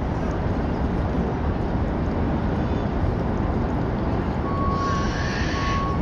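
Steady low background roar, with a thin high steady tone coming in about four and a half seconds in.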